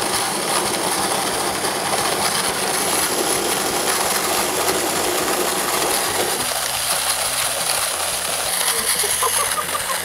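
HARIO Smart G electric handy coffee grinder, its motor unit driving the ceramic-burr hand mill, whirring steadily as it crunches and rattles through a load of coffee beans. The lower crunching thins out about six and a half seconds in.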